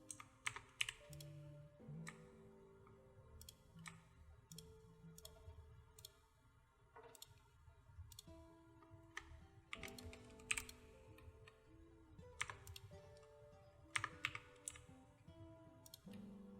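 Irregular clicks and taps of a computer keyboard, a few at a time with short gaps between them, over faint soft background music with held notes.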